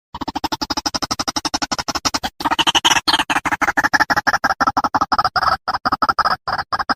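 White-breasted waterhen (ruak-ruak) calling: a fast, unbroken run of repeated notes, about seven a second, pausing briefly about two and a half seconds in and a little louder after it.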